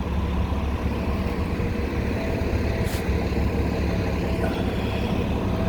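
City street traffic: a steady low rumble of passing and idling vehicles, with a brief click about three seconds in.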